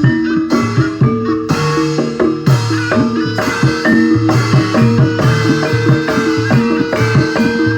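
Javanese gamelan music accompanying barongan: struck bronze mallet instruments playing a fast, steady repeating pattern over hand-drum beats.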